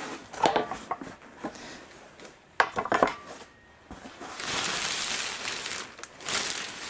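Handling noises: a few light clicks and knocks, then about two seconds of rustling as the thin white cover over a seedling bed is lifted, and a few more clicks near the end.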